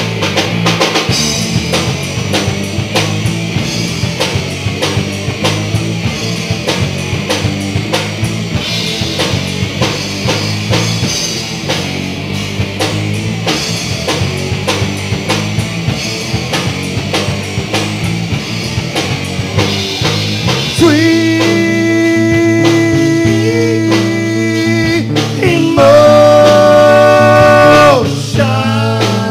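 Live rock band (electric guitars, bass and drum kit) playing an instrumental stretch. About two-thirds of the way in, a lead line comes in with long held notes, louder, rising to a higher held note near the end.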